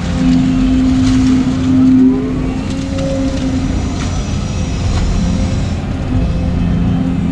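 Volvo EC220 excavator's diesel engine and hydraulics working, heard from inside the cab as the bucket digs, lifts and swings a load of wet mud. A steady engine hum, with a whine that rises in pitch and a brief swell in loudness about two seconds in.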